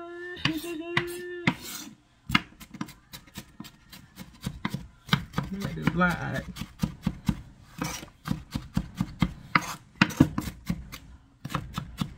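A large kitchen knife chopping fast on a cutting board, mincing onions: quick, irregular knocks, several a second, starting about two seconds in.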